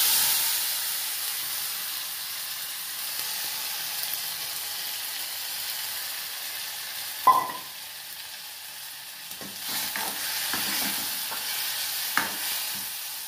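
Squeezed tomatoes sizzling in hot tempering oil in a kadai, loudest as they go in and slowly dying down. A sharp metal clank comes about seven seconds in, and a few lighter knocks follow near the end.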